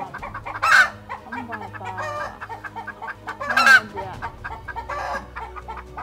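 Chickens clucking, with louder calls about a second in, near four seconds and near five seconds.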